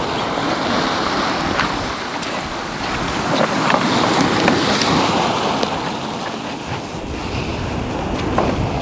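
Sea waves breaking and washing over a boulder shore, the surge swelling loudest around the middle, with wind noise on the microphone.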